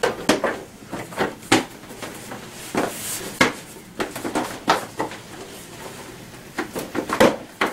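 TaoTao ATM50A scooter's plastic front cowl knocking and clicking against the scooter body as it is pressed on and lined up with its screw holes: a series of irregular light knocks.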